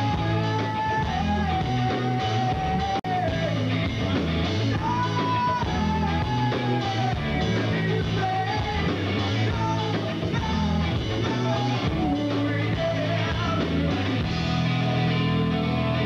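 Live rock band playing: drums, bass and electric guitar, with a sustained, bending lead melody line over them. The sound drops out for an instant about three seconds in.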